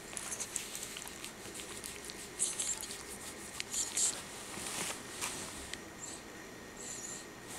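Soft close-up rustling from a Cairn terrier shifting against the fabric couch cushion and the microphone, in short scratchy bursts with small clicks, several of them roughly a second apart.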